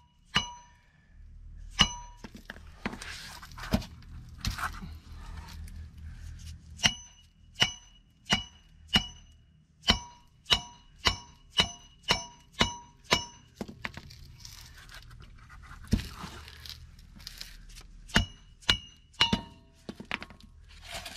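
A soft-faced hammer (dead blow hammer or rubber mallet) striking the hub of a truck's front hub-and-rotor assembly stood on the rotor, in runs of about two blows a second, each blow followed by a short ring. The blows are driving the brake rotor off a hub it is likely rusted to.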